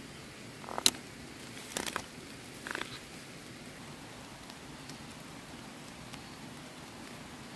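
Short crackles and rustles of a large bundle of cut leafy vegetable stems being handled: a sharp crack about a second in, then two smaller clusters near two and three seconds, over a steady hiss.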